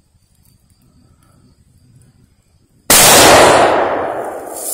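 A single rifle shot about three seconds in, very loud and sudden, its echo through the woods fading over the next second and a half.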